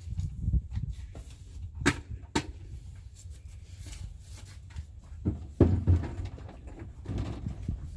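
Two sharp knocks about two seconds in, then a cluster of heavier thumps and clatter a little past five seconds in, over a steady low rumble.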